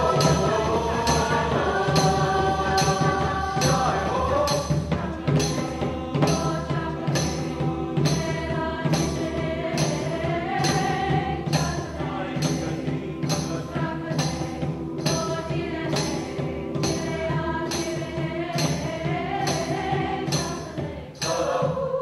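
Mixed-voice choir singing held, shifting chords over a steady high percussion beat, a little under two light strikes a second. Near the end the sound dips briefly, then the choir comes in on a new sustained chord.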